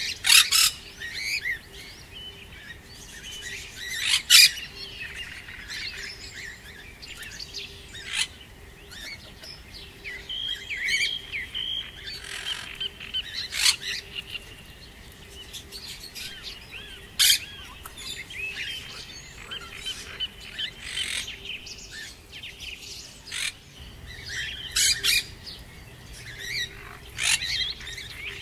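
A busy chorus of small birds chirping and whistling: many short, sharp high calls and quick warbling notes overlapping, with a faint steady hum underneath.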